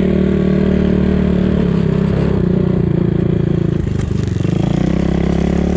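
A 250 cc enduro motorcycle engine running under steady throttle on a snowy trail. The revs drop briefly about four seconds in as the throttle eases, then pick back up.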